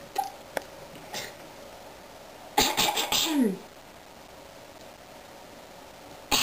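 A woman coughing or clearing her throat, a rough burst of a few quick pulses about two and a half seconds in that lasts about a second and ends with her voice sliding down in pitch. A few small clicks come in the first second.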